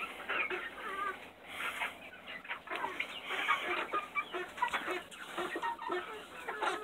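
A flock of chickens clucking and cheeping while they feed, many short calls overlapping.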